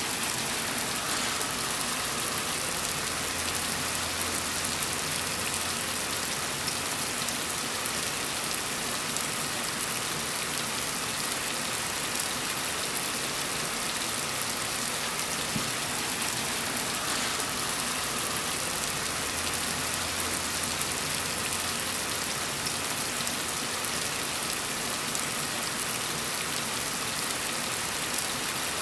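Heavy rain falling steadily, a dense even hiss of countless drops.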